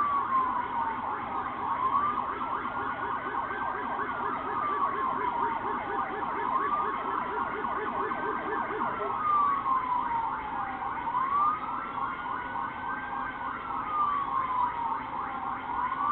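Police vehicle siren on a slow wail, its pitch rising and falling about every four to five seconds, with a faster pulsing sound underneath.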